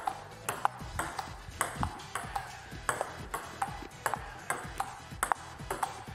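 Table tennis rally: the ball clicking sharply off the paddles and the table in quick alternation, a steady run of two to three clicks a second.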